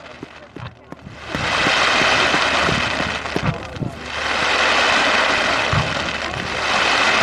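Fireworks display going off: a few sharp bangs, then three long swells of dense crackling hiss that rise and fade, with more bangs between them.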